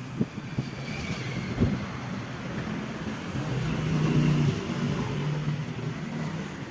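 A motor vehicle's engine passing, its hum growing louder to a peak about four seconds in and then fading.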